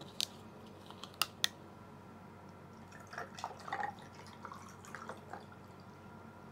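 A plastic drink bottle's cap is twisted open with a few sharp clicks. About three seconds in, the drink is poured into a glass, with splashing and trickling that tapers off into small drips and ticks.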